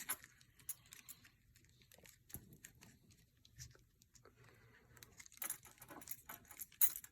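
Faint handling sounds: scattered light clicks, rubbing and crinkling as a car key fob is worked into a snug, flexible protective cover, busier near the end.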